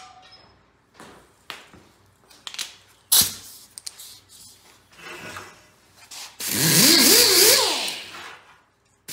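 Clicks and knocks of parts being handled, with one sharp knock about three seconds in. About six and a half seconds in, a power tool fitted with a steel wire wheel spins up and buffs an engine part for about two seconds, its pitch wavering up and down, then winds down.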